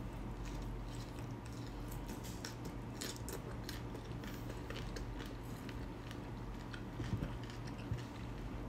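A person chewing a bite of raw cucumber close to the microphone: many small, crisp crunching clicks, over a steady low hum.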